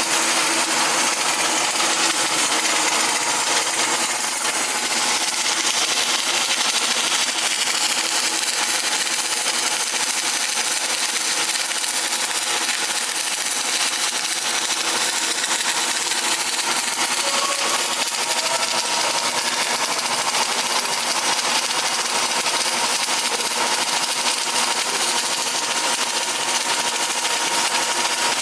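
Arc welding: the welding arc burns steadily with an even hiss.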